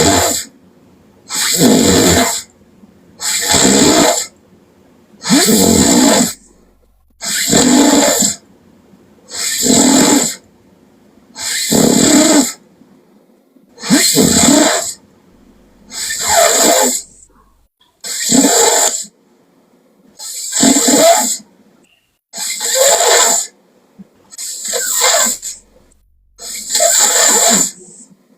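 Loud snoring: about fourteen snores, roughly one every two seconds, each lasting about a second with a short pause between.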